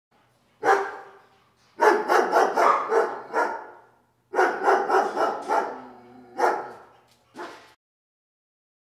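A dog barking in quick runs: a single bark, two runs of rapid barks, then two more single barks near the end.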